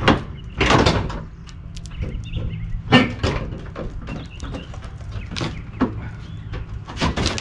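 Clunks and scraping of a Toyota Tundra's factory front bumper being worked loose from its mounts and lowered, with a few sharp knocks and a longer scrape near the start.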